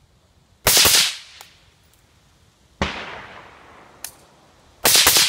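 Suppressed .223 AK-pattern rifle (WBP Jack Tac-556 with a Schultz-Larsen Venom OBT silencer) fired three times, about two seconds apart. Each shot is a sharp, loud report; the middle one trails off more slowly.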